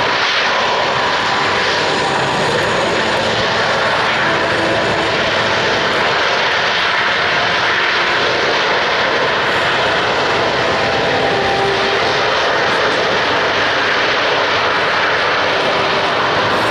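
Boeing C-17 Globemaster III's four turbofan engines running as it rolls along the runway: a loud, steady rush of jet noise with a faint whine in it.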